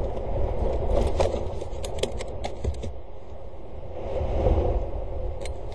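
Wind buffeting an outdoor camera microphone as a steady rumble, with scattered short clicks and scrapes.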